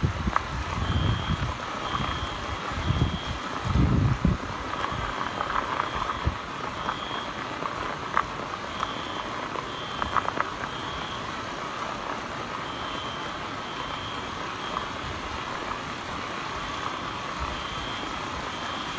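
High electronic beeps repeat about once a second, with pauses between runs, over a steady hiss. Low rumbling comes and goes in the first four seconds.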